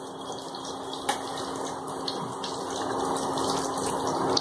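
Breadcrumb-coated cheese cutlets sizzling in hot rice bran oil in a stainless steel kadai, a steady frying hiss that grows slightly louder. The steel spatula clicks against the pan about a second in.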